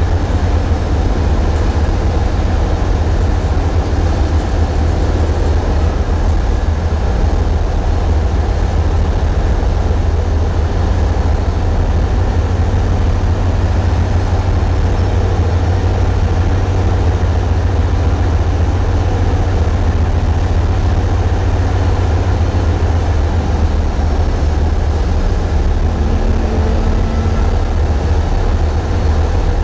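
Tugboat's diesel engines running steadily, a loud low drone. The sound is muddied by vibration from the camera's mount.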